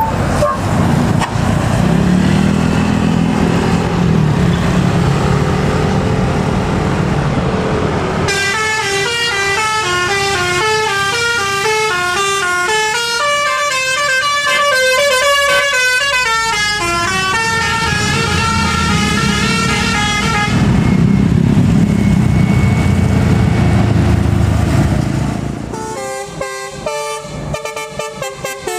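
Bus engine running, then an Indonesian telolet musical bus horn (Basuri type) plays a tune of stepping notes for about twelve seconds. The engine is heard alone again afterwards. Near the end another, quicker telolet tune starts up.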